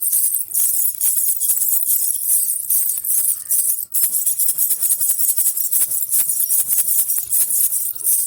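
Baby rattle (jhunjhuna) with small bells shaken continuously, a dense, bright jingling with a brief break about four seconds in.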